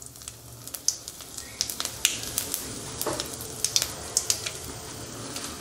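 Hot oil sizzling steadily with scattered sharp crackles and pops from mustard seeds spluttering in it: a South Indian tempering (tadka) in progress.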